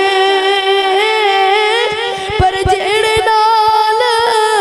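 A boy singing through a microphone in a high voice, drawing out long, slightly wavering notes of a sung Punjabi verse.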